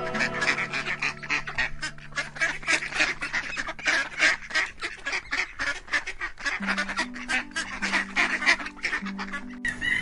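A flock of domestic ducks calling in many short, overlapping quacks, over soft background music with low held notes. The calls change abruptly just before the end.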